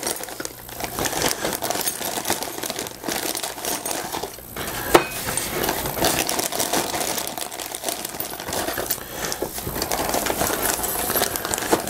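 Clear plastic zip-top bag crinkling while the small brass fittings and screws inside it clink and rattle against each other, with one sharper metallic click about five seconds in.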